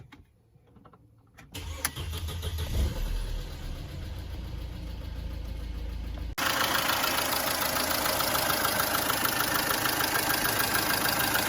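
Mercedes M271 four-cylinder petrol engine starting about a second and a half in and settling to idle. About six seconds in it gets suddenly louder, with a fast even ticking from the valvetrain: the hydraulic lifters (lash adjusters) are still tapping despite a freshly added lifter additive.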